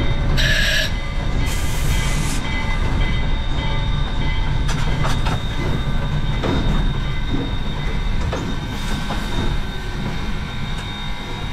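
Narrow-gauge steam locomotive D&RGW 491 and its ten-car train rolling under air brakes as they are brought to a stop: a steady low rumble with a steady high squeal. Two short hisses of air come in the first two and a half seconds, and scattered clicks and knocks follow.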